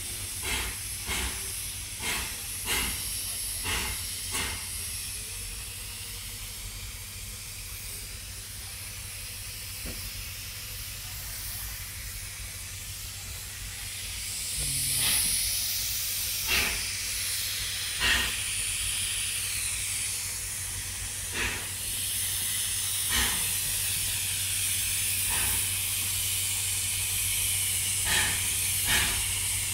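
Steam locomotive hissing steam, with sharp puffs: a quick run of about two a second in the first few seconds, then single puffs a second or two apart in the second half, where the hiss grows louder.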